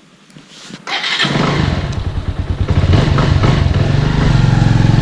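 Quiet for about a second, then a motorcycle engine running steadily, a little louder from about three seconds in.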